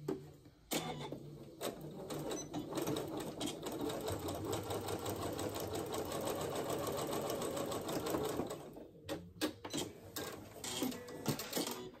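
Janome electric sewing machine sewing an edge stitch, its needle mechanism clattering rapidly and evenly. It starts about a second in, settles to a steady speed, and stops about nine seconds in, followed by a few sharp clicks.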